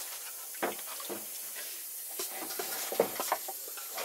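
Soup simmering in a wok over a wood fire, a steady sizzling hiss, with a few scattered clinks and scrapes of a metal ladle stirring in the wok.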